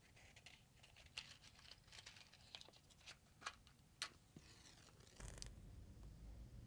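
Faint clicks and scrapes of a small cardboard matchbox being handled and a wooden match taken out, with a sharper scrape about four seconds in as the match is struck.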